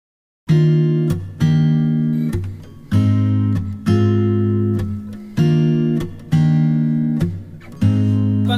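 Background music: strummed acoustic guitar chords, a strong strum about once a second, starting half a second in after a brief silence.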